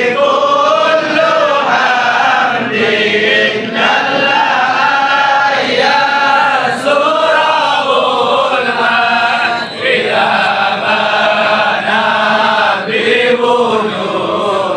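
A large crowd of men chanting sholawat, Islamic devotional praise of the Prophet, together in unison. The melody rises and falls in long sung phrases with short breaks between them.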